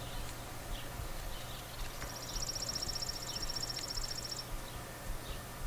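Outdoor background with a steady low hum and a few faint high chirps; about two seconds in, a high, rapid trill starts and runs for about two and a half seconds before stopping.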